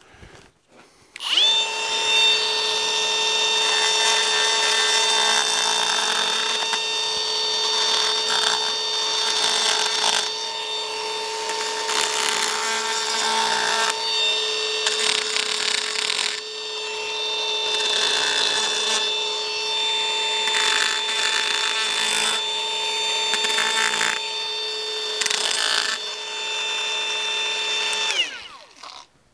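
Handheld die grinder running at a steady high whine, its small bit grinding the inside of a steel rivet header's depression to smooth a sharp lip, with a rasp that comes and goes as the bit bears on the steel. It starts about a second in and spins down near the end.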